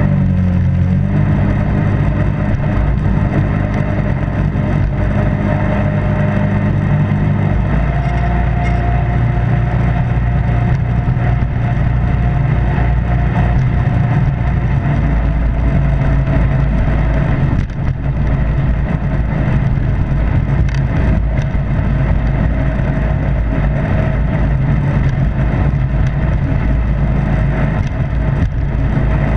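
Jet boat running at speed down a shallow river: the engine holds a steady note under the rush of water and jet wash. The engine note shifts about a second in and again about a quarter of the way through, when a higher whine comes in.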